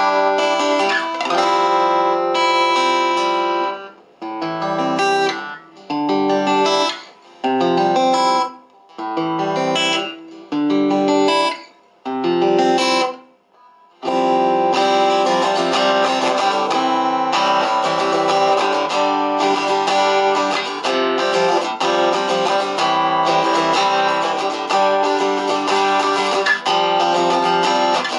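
Acoustic guitar played through a Topsound A20 acoustic guitar amplifier, its EQ set with treble and upper mids full and lower mids and bass at middle, giving a sharper, brighter tone. Short separated chords about a second apart in the first half, then continuous playing.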